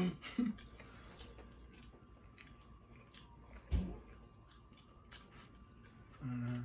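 Faint chewing and mouth noises of people eating bacon and hard-boiled eggs, with scattered small clicks. A dull thump comes a little under four seconds in, and a short hummed voice sound near the end.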